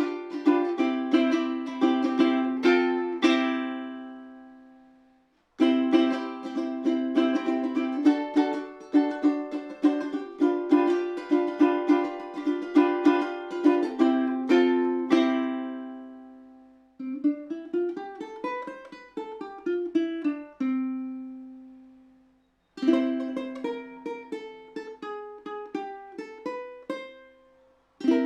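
Cordoba 15CME concert ukulele being played: passages of strummed chords, each left to ring out and fade. In the middle there is a run of single picked notes climbing and then falling back down.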